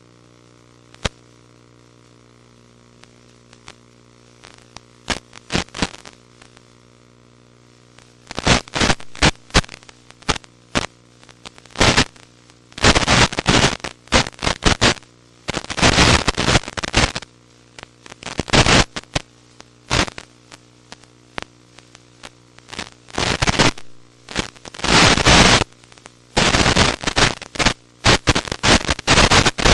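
Electrical hum and radio static on the FPV video link's audio: a steady buzzing hum, broken from about eight seconds in by loud bursts of crackling static hiss that come longer and more often toward the end.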